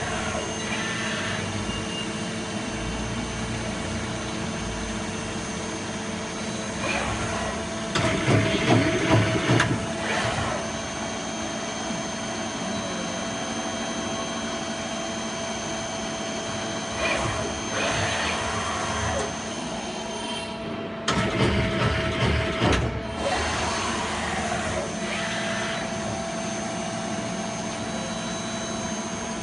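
Miyano CNC lathe running with a steady hum and several held tones, including a high whine. About eight seconds in, and again about twenty-one seconds in, the sound turns louder and rougher for a couple of seconds.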